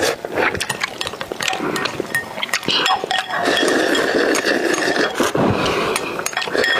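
Close-up eating sounds: slurping noodles with chopsticks clinking against a glass bowl, then a long slurp as the sauce is drunk straight from the tilted bowl.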